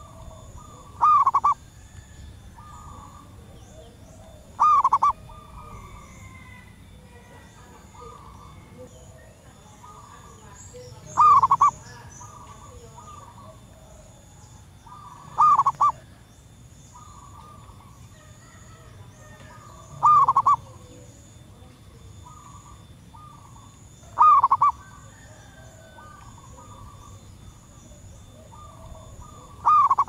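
A female zebra dove calling, a short call of a few quick notes repeated about every four seconds, seven times in all. Fainter calls of other birds sound between them.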